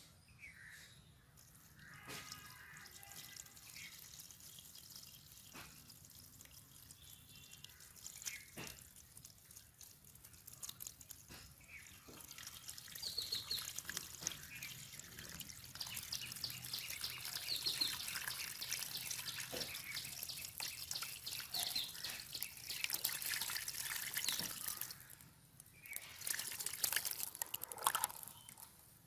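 Water splashing and dripping in a plastic basin as live fish thrash about in it, growing louder and busier about halfway through.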